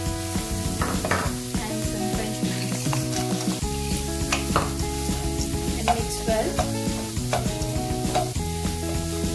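Chopped vegetables (carrot, cabbage, green pepper, spring onion) sizzling in hot oil in a frying pan, stirred and tossed with a wooden spatula that scrapes the pan in short strokes. Background music runs underneath.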